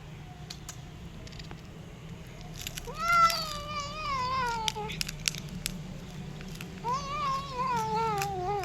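Stray cat giving two long, drawn-out meows while it eats, each sliding down in pitch, with short clicking sounds of eating around them.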